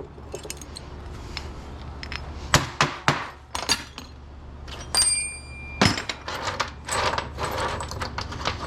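Metal parts of electrical switchgear clinking and clattering as it is taken apart by hand, a string of sharp clicks and knocks. A piece gives a short metallic ring about five seconds in.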